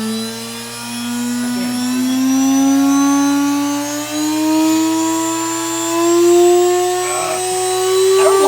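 Salvaged vacuum cleaner motor spinning a blank CD, its whine rising steadily in pitch as it spins up to speed.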